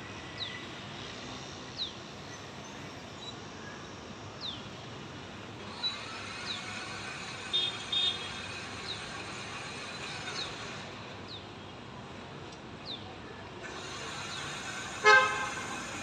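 Short, high, falling chirps from a small bird every second or two over a steady hum of street traffic. A vehicle horn toots twice around halfway and honks loudly near the end.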